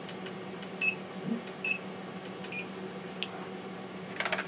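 Three short, high beeps from an HxC floppy-drive emulator as its buttons are pressed to pick a disk image, over the steady hum of the TRS-80 Model 16B. Near the end comes a quick burst of keystrokes on the Model 16B's keyboard.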